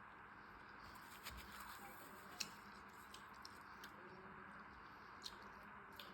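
Near silence with a few faint, sharp clicks, the clearest about two and a half seconds in and again near the end.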